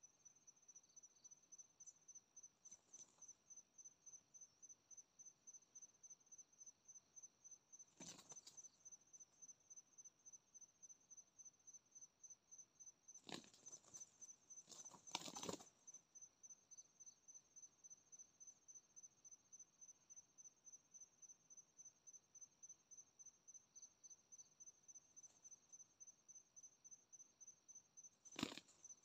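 Faint, steady cricket chirping: a high, even pulse about three times a second. A few brief rustles or knocks break in, the loudest about halfway through.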